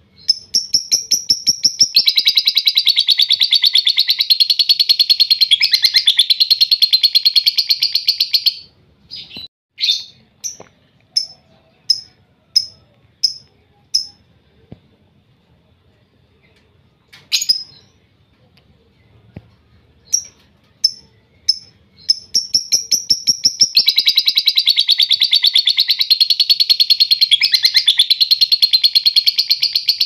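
Lovebird singing its long rattling ngekek trill: a few spaced chirps build into a rapid chatter lasting about six seconds, then single sharp chirps and a pause of a few seconds, then the chirps build again into a second long trill near the end.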